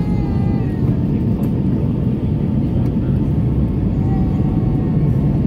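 Steady cabin noise inside an Airbus A320 airliner on approach: a loud, even, low rumble of the jet engines and the airflow over the fuselage.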